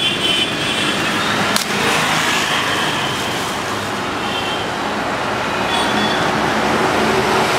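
Steady roadside traffic noise, with a single sharp click about one and a half seconds in.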